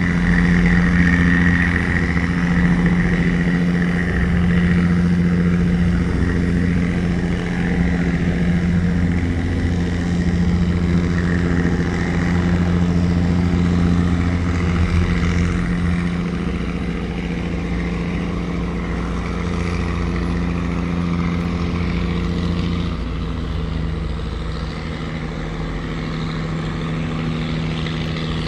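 Wooden river tugboat's engine running steadily with a constant pitch while towing, a little quieter for the last few seconds.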